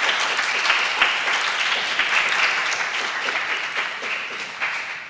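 Audience applauding, many hands clapping together, slowly dying down toward the end.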